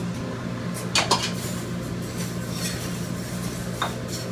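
Dishes and cutlery clinking in a commercial kitchen: a sharp ringing clink about a second in and another near the end, over a steady low hum.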